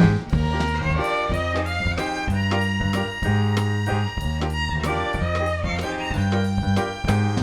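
Small jazz band playing a jazz waltz on violin, piano, bass and drums, with the violin carrying the lead line over a walking bass.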